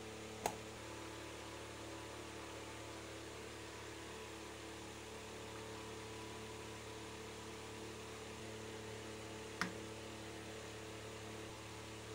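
Steady low electrical hum with several fixed tones. Two brief light clicks break it, one about half a second in and one near the end, as small gear parts are handled.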